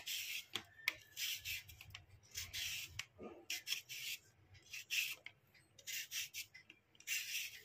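Hand vegetable peeler scraping the skin off a white radish in short repeated strokes, about one and a half a second.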